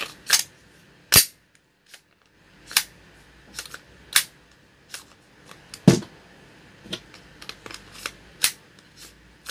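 Sharp plastic-and-metal clicks and clacks from working a gas blowback airsoft Glock 19X with an Action Army magazine, roughly a dozen at irregular intervals. The loudest comes about a second in and another near six seconds. The magazine is hard to seat in this pistol.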